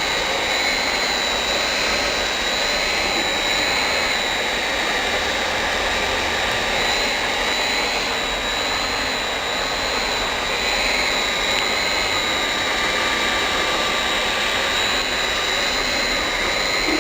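Automatic hot-air PVC welding machine running, its heat-gun blower giving a steady rush of air with a constant high whine.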